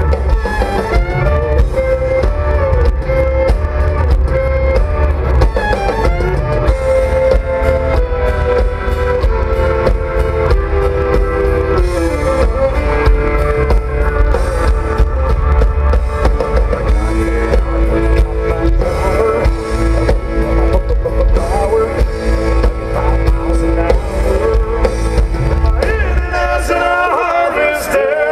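Live country band playing with drums, electric guitar and a singing voice. Near the end the drums and bass drop out, leaving held chords ringing.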